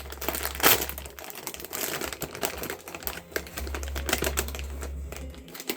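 Rapid, irregular clicking and rustling, like things being handled, over a low hum.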